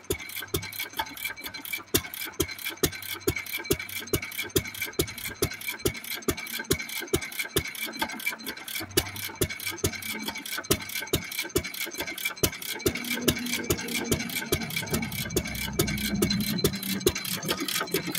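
1917 Fairbanks Morse Model Z 3 hp single-cylinder throttle-governed engine running at its slowest speed. Its exhaust beats steadily and evenly, between two and three times a second, growing louder near the end.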